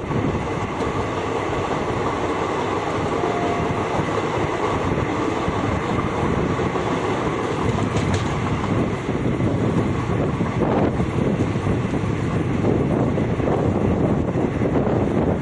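Passenger train running at speed, heard from an open coach doorway: a steady rumble of wheels on the rails with rushing air.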